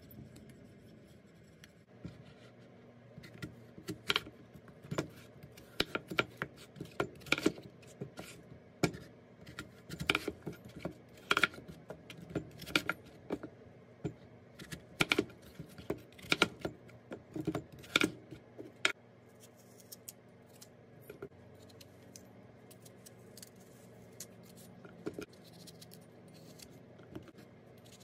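Kitchen knife cutting peeled apples on a plastic cutting board: a run of sharp, irregular knocks of the blade on the board, thinning out to a few after about 19 seconds.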